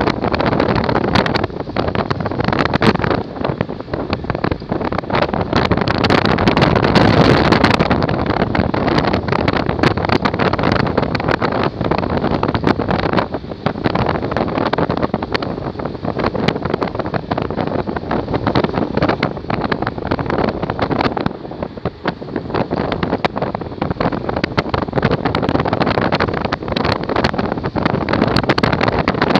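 Loud, fluctuating rush of wind buffeting the microphone of a moving vehicle, mixed with the vehicle's road noise.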